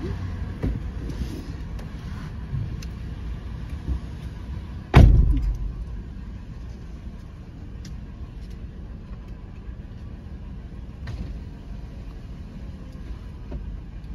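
A car door slams shut with one loud thump about five seconds in, heard from inside the car over a steady low rumble of its engine idling.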